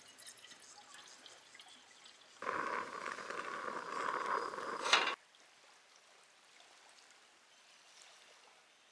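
Liquid pouring in a steady stream for nearly three seconds. It starts and stops abruptly, with a sharp click just as it ends.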